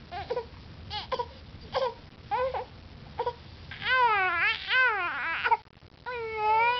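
Infant crying while lying on his tummy. Short fussy cries come about once a second, then from about four seconds in longer wailing cries rise and fall in pitch.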